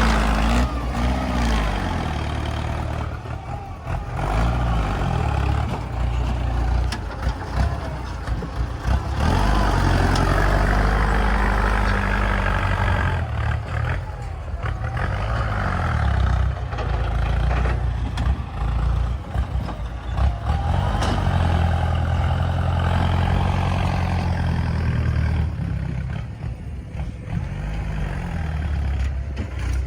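Heavy diesel engine of an earthmoving machine at work, its revs rising and falling over and over.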